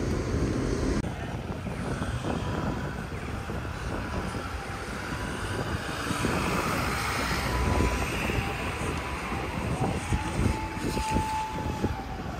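City street traffic: cars and trucks running past with a steady low rumble. A short steady whine sounds near the end.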